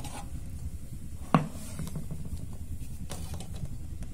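A metal baking pan knocks once against the metal of a wood-stove oven about a second in, with a short ring, over a steady low rumble. A couple of faint taps follow near the end.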